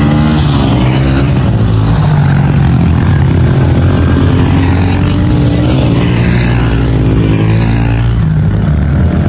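Pit bike engines revving up and down as the bikes race, with several engine notes rising and falling over one another.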